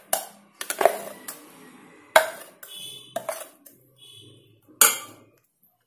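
A spoon knocking and scraping against a mixer jar and an aluminium saucepan as thick ground coconut paste is spooned into cooked ash gourd. About five sharp knocks, a couple of them with a short metallic ring.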